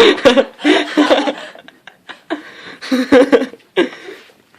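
People chuckling and laughing in several short bursts.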